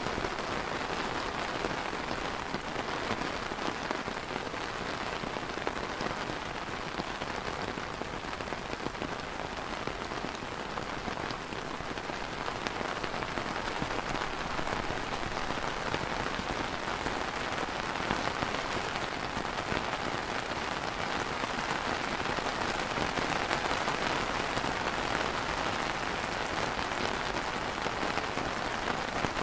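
Steady light rain falling on a clear plastic umbrella canopy: a dense, even hiss of many small drop ticks on the taut canopy.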